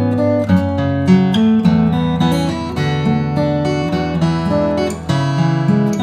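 A Journey Instruments acoustic guitar played unaccompanied, mixing strummed chords and picked notes, with the chord changing every second or so.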